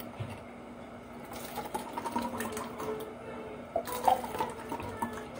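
Thick milky gulaman shake poured from a glass jug into plastic cups, the liquid filling the cups, starting about a second in.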